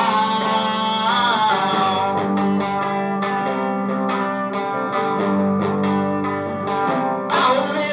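Punk rock song with strummed electric guitars and bass. It thins to a sparser passage a couple of seconds in, and the full band comes back in louder near the end.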